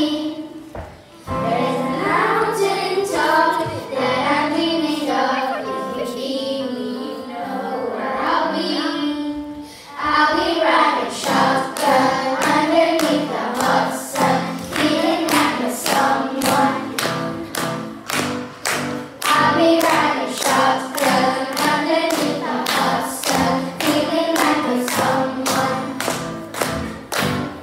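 Children singing a pop song together to acoustic guitar and electronic keyboard. About ten seconds in, a steady rhythmic beat enters and the music gets louder.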